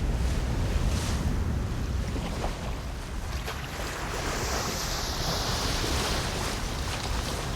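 Sea waves washing onto the shore, over a low rumble of wind on the microphone; a hissing wash of surf swells up about four seconds in and fades near the end.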